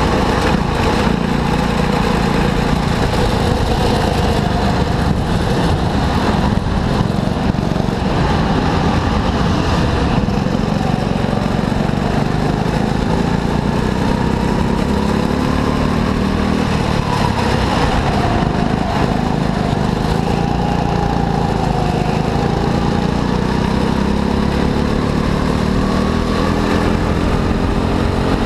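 Go-kart engine running continuously at a steady, loud level, its pitch slowly rising and falling.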